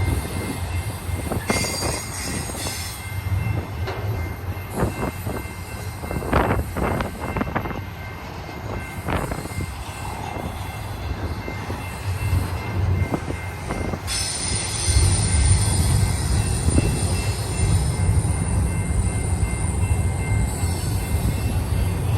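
Long double-stack freight train rolling past: a steady rumble of railcars with wheels clicking over the rail and a thin, high wheel squeal. About two-thirds of the way through, a deeper and louder rumble sets in.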